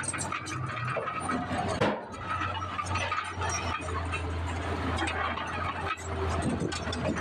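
Dump truck engines running steadily while soil and rock slide out of the raised tipper beds, with some higher squealing over the rumble. The sound breaks off abruptly about two seconds in and again near six seconds, where one clip cuts to the next.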